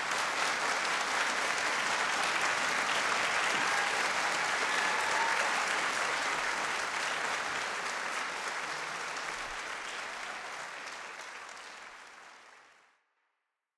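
Audience applauding steadily, then tapering off and cutting away to nothing near the end.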